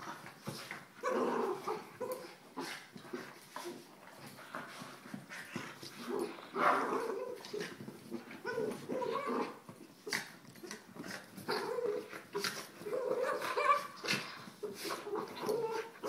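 Soft coated wheaten terriers at play, giving repeated short yips and whimpering sounds mixed with frequent sharp clicks.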